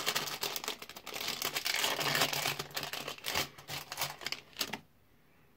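Crinkly packaging being crumpled and torn open by hand to free a small figure, a rapid, irregular crackle that stops suddenly near the end.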